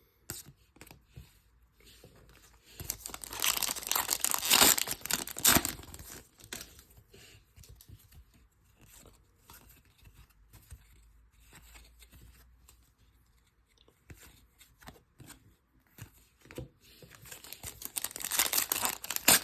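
Foil wrapper of a trading-card pack being torn open and crinkled, in two spells of rustling: one from about three to six seconds in and another near the end. Faint small ticks and taps in between.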